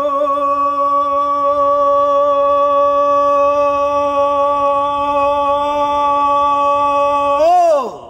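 A man's voice holding one long, loud sung note at a steady pitch. Near the end it swoops up, drops and breaks off.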